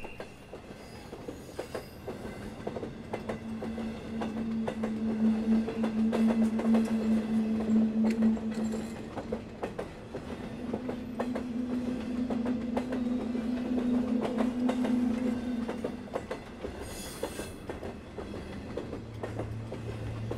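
A train running on rails: wheels clacking over the track, with a steady low hum that swells and fades through the middle.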